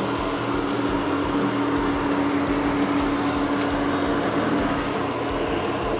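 Ecovacs Deebot OZMO 920 robot vacuum cleaner running: a steady whirring noise with a humming tone that drops away about four and a half seconds in.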